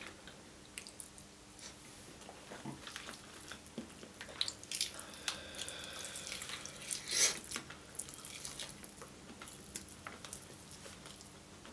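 Close-up eating sounds of sticky, sauce-coated Korean fried chicken: wet chewing and lip smacks with the tearing of meat pulled from the bone by hand. It comes as scattered soft clicks and smacks, loudest around a bite about seven seconds in.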